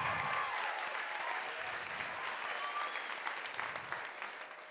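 Audience applauding, with a few cheering voices at the start; the applause eases off near the end.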